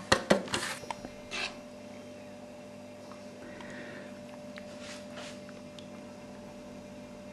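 Metal baking pan shaken and tapped on the table to spread breadcrumbs over its buttered bottom: a quick run of rattling taps in the first second and a brief rustle of crumbs. Then a quiet room with a faint steady hum and a few soft scuffs.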